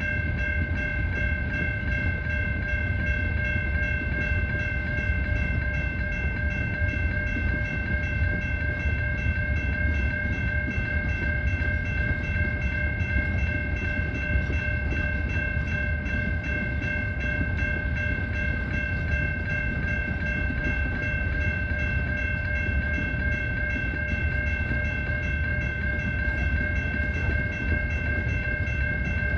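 Grade-crossing warning bell ringing without a break over the low rumble of a CN freight train rolling through the crossing.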